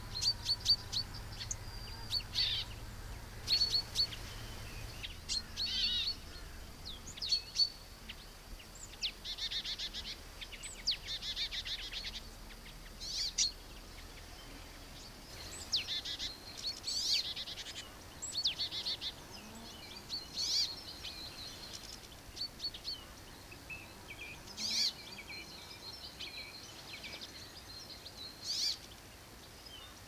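Small songbirds calling and singing: many short high chirps, with rattling trills in the middle, over a faint outdoor background.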